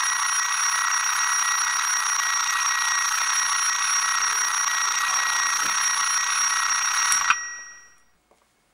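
Alarm clock ringing loudly and without a break, then stopping suddenly with a click about seven seconds in, its ring dying away within a second.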